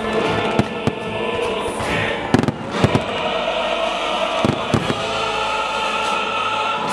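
Fireworks bursting: a string of sharp bangs, the loudest cluster about two and a half seconds in, over loud music playing throughout.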